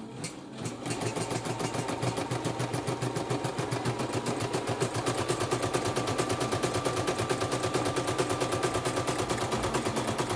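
CNY E960 portable computerized embroidery machine stitching at 650 stitches a minute: a fast, even needle clatter of about ten strokes a second that speeds up about a second in, with a steady whine joining about halfway. It runs smoothly, with no crunching 'kruk-kruk' and no stalling, its settings adjusted for high speed.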